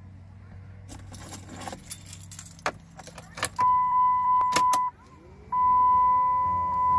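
Keys jangling and clicking into the ignition, then the truck's electronic warning chime sounding one steady high tone. It breaks off for about half a second a little before five seconds in, as the ignition is switched on, then sounds again and holds.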